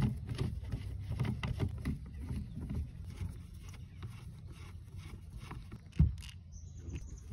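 Screwdriver turning rusty screws in a corroded metal chassis: a steady run of gritty scraping clicks and grinding. A sharp knock near the end as the loosened transformer is lifted out.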